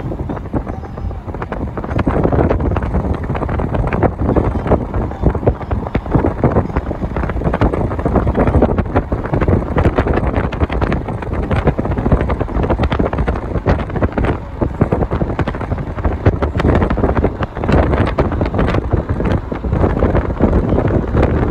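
Wind buffeting the microphone over the rumble of a car driving along, getting louder about two seconds in and staying loud.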